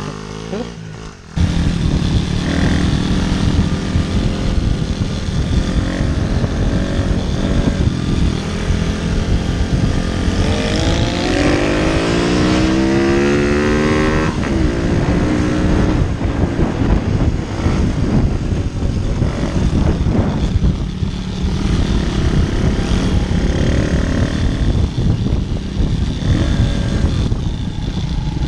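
Small single-cylinder four-stroke pit bike engine running under way, heard from on board the bike. About halfway through it revs up for a few seconds, rising in pitch, then drops back suddenly.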